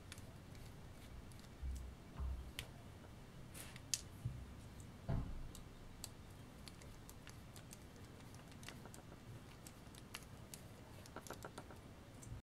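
Faint, scattered clicks and ticks of a precision screwdriver working tiny screws on a GoPro Hero5 Session's metal cage, with a few low handling bumps about two and five seconds in and a quick run of ticks near the end.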